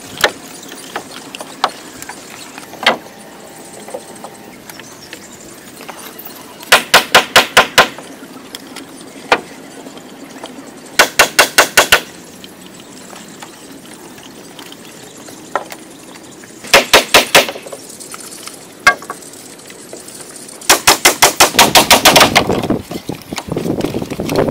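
Rapid bursts of hammer blows, about seven strikes a second, as poles of a wooden frame are nailed. There are four bursts, each about a second long, with a few single knocks between them.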